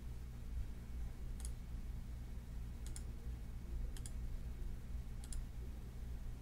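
Computer mouse clicking four times, a second or so apart, over a faint steady low hum.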